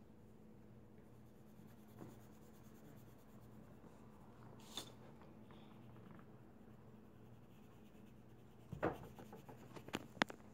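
A faint steady hum, with a single click about halfway, then paper sheets rustling and being shuffled, with a few sharp knocks, near the end.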